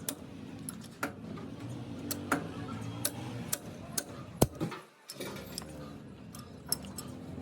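Irregular sharp clicks and taps, a few a second, with one louder knock about four and a half seconds in: small metal parts and hand tools being handled during repair work.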